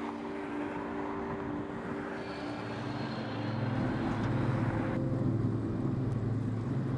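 A motor vehicle's engine running with a steady low hum that grows louder about three seconds in, after some held musical tones fade out at the start.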